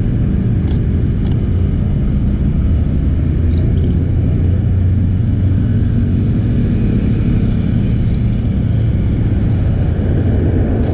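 Steady low rumble of road traffic, with a few faint clicks in the first few seconds.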